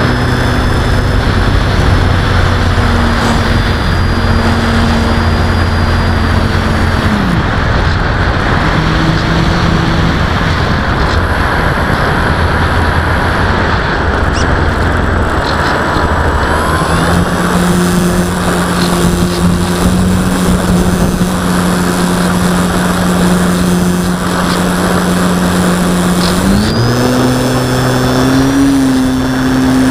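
Onboard sound of a Parkzone Sport Cub model airplane's electric motor and propeller running, over a heavy rush of wind on the airframe. The motor note drops about seven seconds in, settles at a lower steady pitch from just past halfway, and rises again near the end as the throttle is opened.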